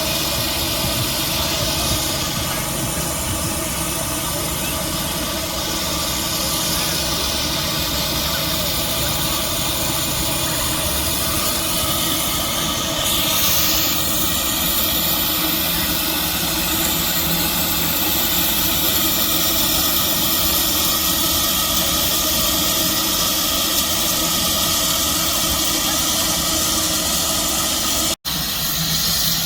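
Antique steam traction engine running, a steady loud rush of steam and exhaust hiss with a low running drone underneath. The sound cuts out for a moment near the end.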